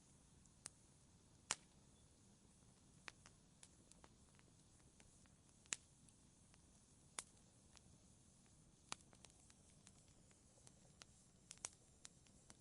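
Wood fire crackling in a fireplace, faint: sharp, irregular pops and snaps every second or so, a few louder than the rest, over a low steady hiss.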